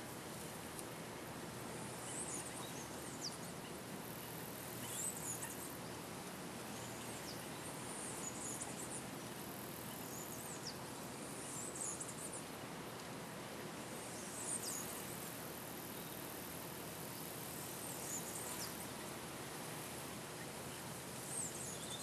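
Steady outdoor background hiss with short, high chirps every couple of seconds.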